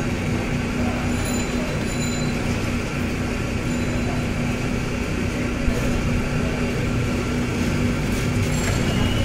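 Cotton candy machine running: its motor-driven spinning head gives a steady whirring noise with a constant low hum.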